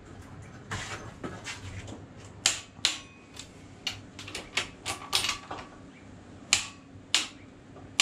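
Click-type torque wrench and ratchet on the main bearing cap bolts of a Ford 351 Cleveland: a series of sharp metallic clicks at uneven spacing as the bolts are pulled down to torque.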